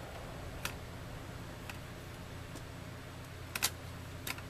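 Plastic snap clips of a Dell Inspiron 1420 laptop case clicking loose as the case halves are pried apart at the corners: a few separate sharp clicks, the loudest a quick double click about three and a half seconds in.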